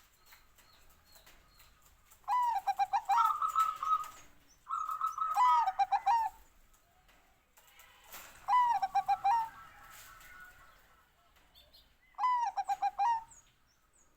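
Bangkok-bred zebra dove (perkutut) cooing: four separate phrases of quick, stuttering coo notes, the first two ending in a longer held note, with pauses of a few seconds between.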